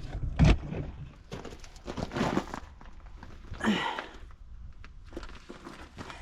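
Someone working in a truck's baggage compartment: a thump, then rustling and scattered knocks of handling and moving about, with one short louder noise a little past the middle.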